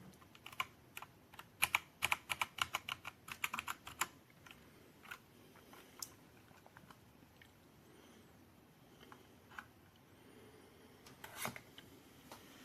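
Typing on a Dierya T68SE 60% mechanical keyboard with blue switches, each keystroke a sharp click. A fast run of keystrokes comes in the first four seconds, then scattered single keystrokes, and a louder short cluster near the end.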